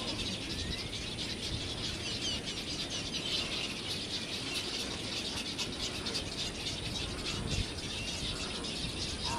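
Birds in a nesting colony chattering and chirping without a break, over a low rumble. There is a single soft thump about three-quarters of the way through.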